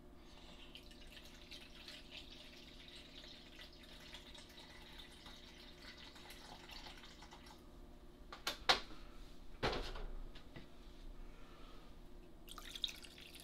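Water trickling and pouring as measured water and cleaning solution go into the tank of a Hornady Lock-N-Load Sonic Cleaner 2L, with two sharp knocks a little past halfway, and pouring again near the end.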